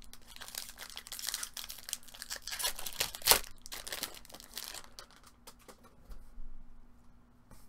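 Foil trading-card pack wrapper crinkling and tearing as it is ripped open and crumpled, with one sharp loud crackle about three seconds in. The crinkling dies down after about five seconds, leaving only a few faint ticks.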